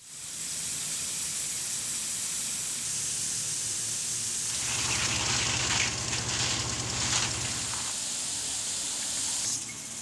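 Pop-up lawn sprinklers spraying water: a steady hiss of spray, which grows fuller about halfway through with a few brief spurts.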